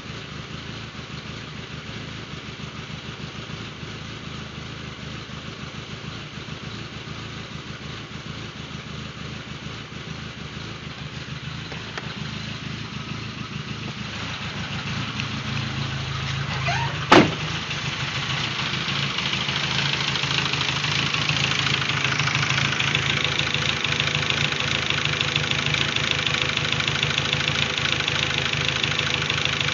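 2001 VW GTI's 1.8-litre turbocharged four-cylinder engine idling with a misfire, after a turbo swap, while throwing a knock sensor #1 code, air/fuel codes and a cylinder 4 misfire code whose cause has not been found. The engine grows louder about halfway through, and a single sharp click comes about two-thirds of the way in.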